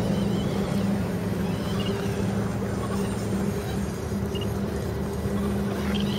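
Electric drive motor and gearbox of a radio-controlled scale truck humming steadily as it crawls over rough dirt.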